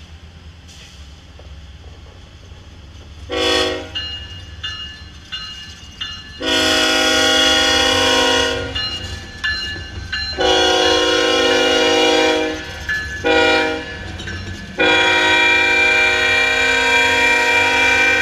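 Air horn of a Norfolk Southern GE ES44AC locomotive passing at close range: one short toot, then the long, long, short, long grade-crossing signal. Under it, the locomotives' diesel engines and wheels on the rails give a steady low rumble.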